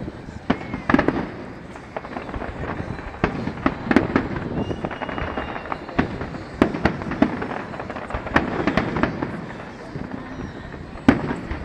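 Aerial fireworks display: repeated sharp bangs and crackling of shells bursting, loudest about a second in and again near the end, over the murmur of a watching crowd.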